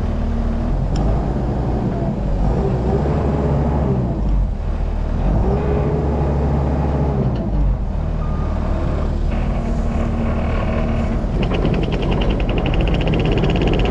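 Farm vehicle engine running steadily as the vehicle is driven, its pitch rising and falling a little around the middle. A fast rattling ticks along over the last couple of seconds.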